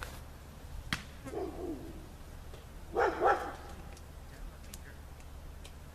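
A dog barks twice in quick succession about three seconds in, the loudest sound here, after a fainter call a second or so before. A single sharp smack comes about a second in.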